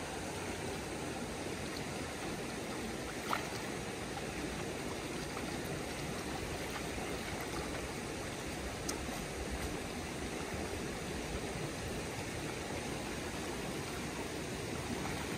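Swollen, muddy creek in flood, a steady rush of fast-running water around a wader's legs, with one light knock about three seconds in.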